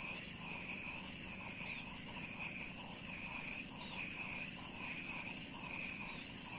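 Insects trilling in a steady chorus that pulses about twice a second.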